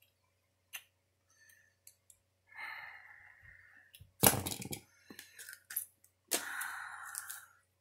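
Paper mailers being handled and torn open, the tape ripping off: scattered clicks and crinkles, two longer tearing noises, and a sharp knock about four seconds in that is the loudest sound.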